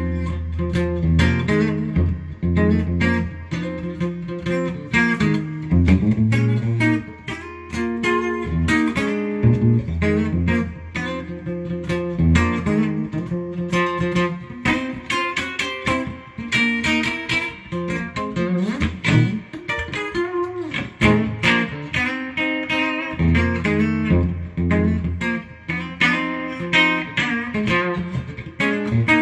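Electric guitar played through a Fender Twin amplifier: a jazz-blues tune with chords and single-note lines over a steady low bass line.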